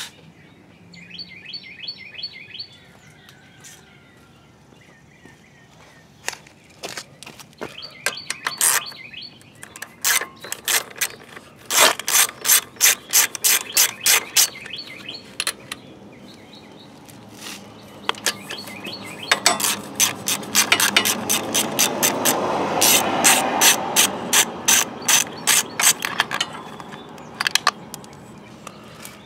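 A socket ratchet clicks in quick runs, in two long spells with a short pause between them, as the bolts holding a small engine's air filter housing are backed off to get at the carburetor.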